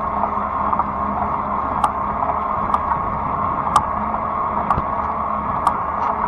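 Fat-tire electric bike riding along, a steady rolling noise with a constant low hum, broken by about half a dozen sharp ticks.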